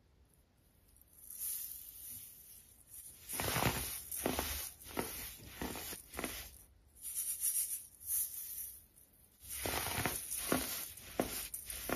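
Dry baking soda clumps crushed and rubbed by fingers against a metal wire-mesh sieve: gritty crunching and scraping in irregular bursts. The louder bursts come a few seconds in and again near the end.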